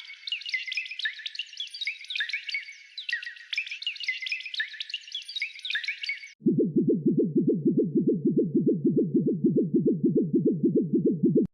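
Synthesized anime sound effect: a rapid flurry of high, falling electronic chirps, then about six and a half seconds in a switch to a louder low throb of about six falling pulses a second, which cuts off suddenly.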